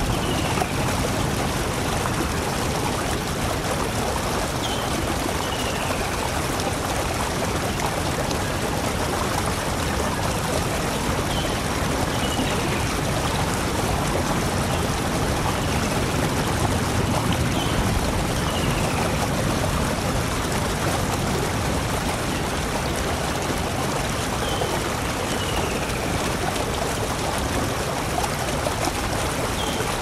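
Steady rush of flowing water, even and unbroken. A faint high chirp that slides down in pitch recurs about every six seconds.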